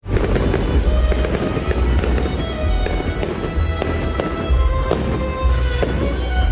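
Fireworks display going off: a string of bangs and crackling bursts a second or so apart, with music playing underneath.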